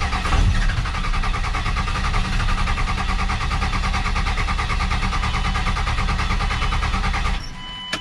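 Starter cranking a 24-valve Cummins 5.9 L inline-six diesel in an even rhythm for about seven seconds without the engine catching, then stopping. It is a hard start: air in the fuel system after the fuel drained back.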